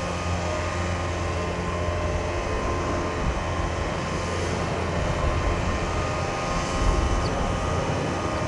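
Steady low rumble of distant jet aircraft engines at an airport.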